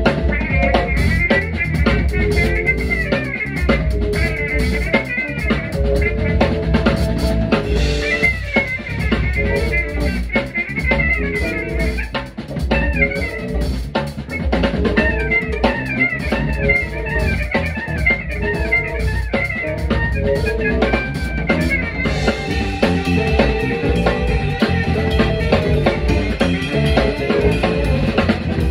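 A live band playing an instrumental number: drum kit and electric bass under guitar, keyboards and horn lines. The sound grows brighter about 22 seconds in.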